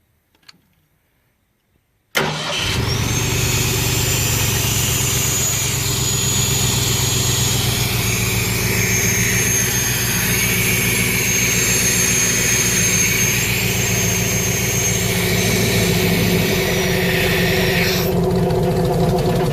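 Gasoline engine of a towable air compressor, with a points distributor, firing up at once on the key after a couple of seconds of quiet with faint key clicks, then running steadily and loudly. Near the end a high hiss drops away and the engine sound stops, behaviour the owner treats as a fault still present.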